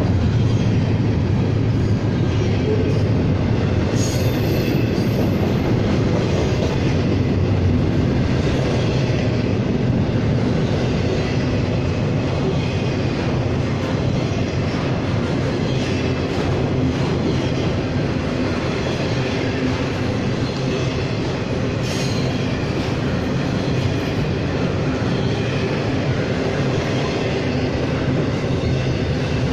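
CSX double-stack container freight train rolling past at close range: a steady rumble of cars and wheels on the rails, with a brief high wheel squeal about four seconds in.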